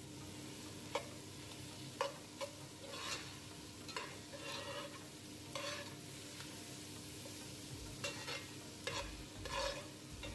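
Chopped onion, lemongrass, galangal, garlic and ginger sizzling in oil in a non-stick pot, stirred with a metal slotted spoon that scrapes and knocks against the pan bottom in irregular strokes about once a second.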